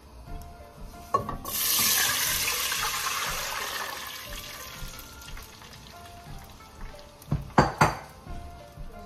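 Water poured from a bowl into a metal stockpot, a loud splashing rush that starts about a second and a half in and tapers off over a few seconds. Two sharp knocks near the end.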